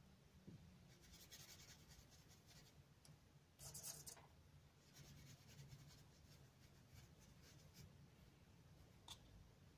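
Faint scratching of a paintbrush working watercolour into acrylic paper, in a few short bouts, the loudest a little under four seconds in.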